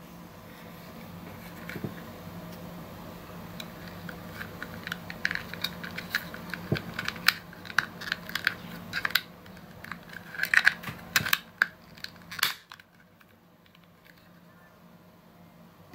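Hard clear plastic toy train handled in the hands: a run of quick plastic clicks and taps as fingers press and grip the body. The clicks thicken in the middle and stop about three quarters of the way through.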